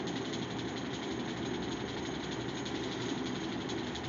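Steady mechanical hum from a small motor running continuously, with a fast, even rattle.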